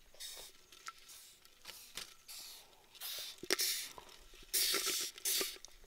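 Dry rustling and scratching in short, irregular bursts, with small clicks, as leaves and live beetles are handled and the beetles are gathered into a clay pot. The bursts are loudest about three and a half seconds in and again near the end.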